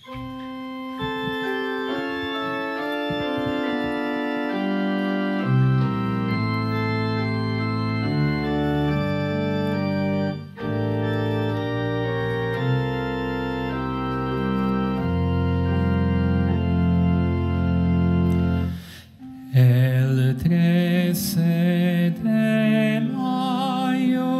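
Organ playing a hymn's introduction in slow, held chords after the call to sing. About nineteen seconds in it breaks off briefly and singing with a wavering vibrato begins over the organ.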